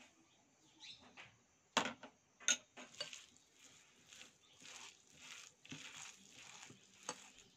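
Mixing breadcrumbs into a bowl of soaked sabudana and mashed potato: two sharp knocks, then a run of soft, even swishing strokes about two a second.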